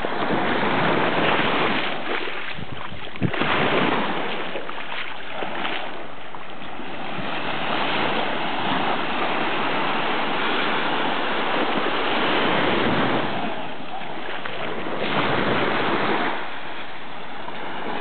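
Small ocean waves washing up and draining back over the sand at the water's edge, surging louder every few seconds, with wind gusting on the microphone.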